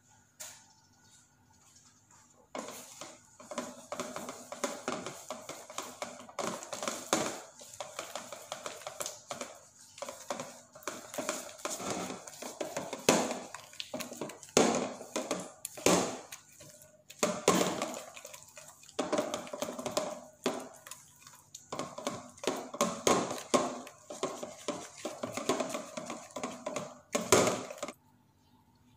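Egg and flour batter being mixed by hand in a ceramic bowl: fingers squishing through the batter and scraping against the bowl in quick, irregular strokes, starting about two and a half seconds in and stopping just before the end.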